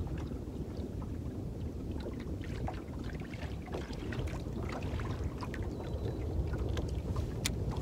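Small waves lapping against a fishing boat's hull with a steady low rumble of wind on the microphone, broken by scattered light ticks and taps and one sharper click near the end.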